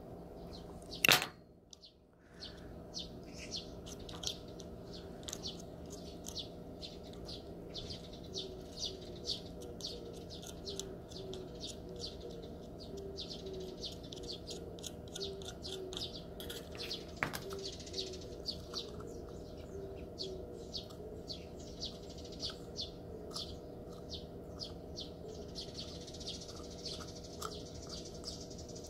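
Small birds chirping repeatedly, with a single loud sharp knock about a second in.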